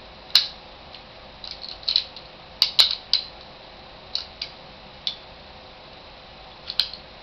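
Sharp metallic clicks and light clacks from a 1911 pistol's frame and parts being handled during reassembly, about a dozen in an irregular scatter, some in quick pairs.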